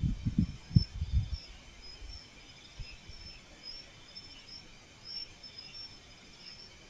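Night insects chirping steadily in a high, even trill, with a few low dull thumps in the first second and a half.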